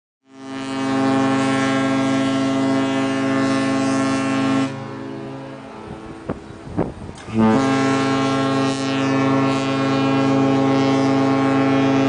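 A passenger liner's ship horn sounding two long, deep blasts of about four to five seconds each, with a gap of nearly three seconds between them.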